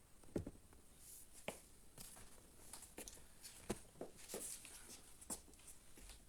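Faint, irregular light taps and rustles, about half a dozen scattered through a quiet room, like someone moving about and handling things.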